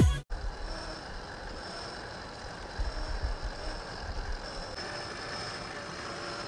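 Electronic intro music cuts off abruptly at the very start, leaving quiet outdoor ambience: a low gusty rumble of wind on the microphone and a faint, steady high-pitched tone.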